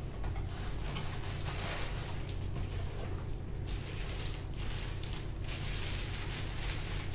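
Cardboard box flaps being opened and a headlamp in a clear plastic bag lifted out, with continuous irregular rustling and crinkling of cardboard and plastic packaging.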